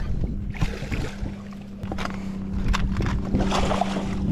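Hooked striped bass splashing at the surface beside a bass boat as it is reeled in, with scattered clicks, over a steady low hum.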